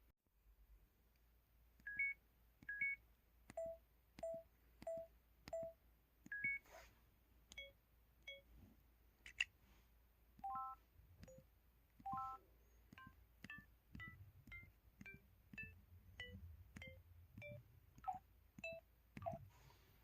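MS500 mobile phone's 'Doremi' keypad tones: a series of short electronic beeps, one per key press, each at a different musical pitch, some sounding two notes together. They come about one a second at first and quicken later.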